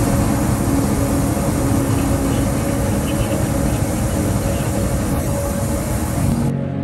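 Steady cabin noise inside an airliner climbing after take-off, the engines and rushing air blending into one even noise that cuts off abruptly near the end.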